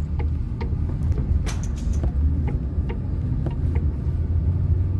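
Steady low road and engine rumble heard inside the cabin of a moving car, with a few light, irregular ticks over it.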